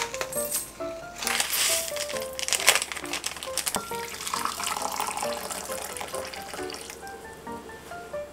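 Background music with short, bright notes over kitchen sounds of splashing water, in two noisy stretches in the first half.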